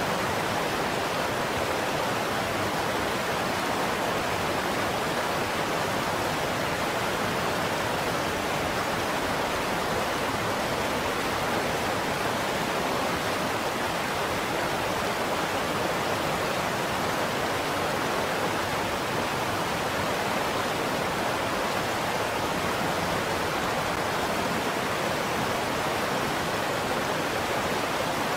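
Steady rushing of river water flowing over rocks, an even hiss-like noise that stays constant throughout.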